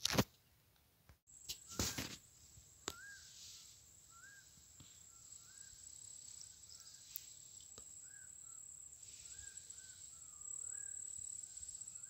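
A couple of knocks from the camera being handled. Then insects keep up a steady high-pitched trill, with short rising chirps from another animal repeating about once or twice a second underneath.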